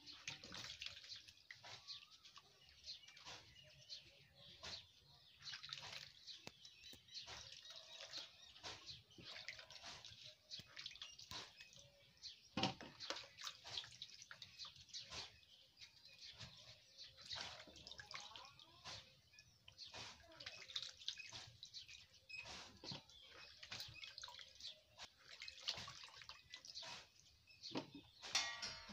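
Faint water splashing and dripping as badhar (monkey jack) fruits are rubbed and rinsed by hand in a plastic tub of water, in many short, scattered splashes.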